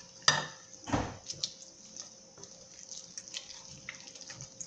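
Sticky panettone sponge dough being mixed in a glass bowl: a sharp knock about a quarter second in and a duller thump near one second from the wooden spoon against the bowl, then faint small clicks and wet squelches as the dough is worked by hand.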